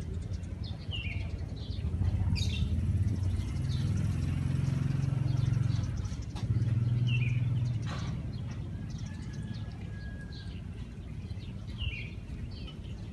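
Small birds chirping on and off over a low engine rumble that swells from about two seconds in and fades after about eight seconds, like a vehicle passing.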